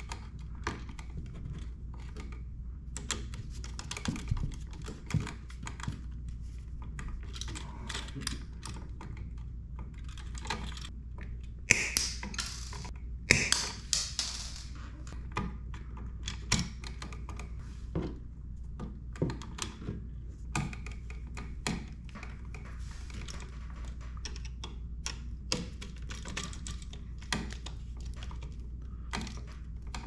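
Irregular clicks, taps and scrapes of a screwdriver and stiff copper wires against a plastic outlet receptacle as the wires are pushed into its back-wire holes and the terminal screws are tightened. A louder flurry of scraping clicks comes about twelve seconds in.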